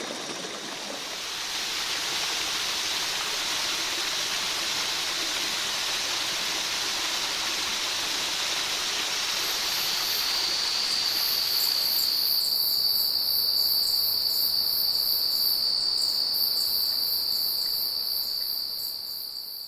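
A steady rushing noise of rainforest ambience cuts out about twelve seconds in. Insects take over: a steady high-pitched drone with rapid pulsing chirps above it. It fades at the very end.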